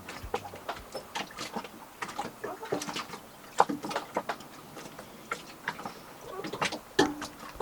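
Irregular light clicks and taps, several a second and uneven in strength, some with a brief ring.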